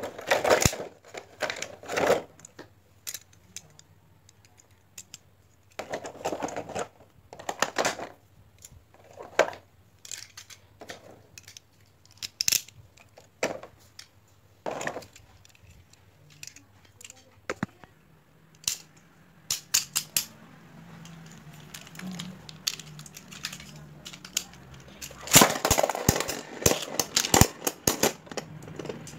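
Plastic clicks and crackles of Beyblade parts being pulled from a clear plastic blister tray and snapped together, with a denser run of clicking and clattering near the end as the tops go into a plastic stadium.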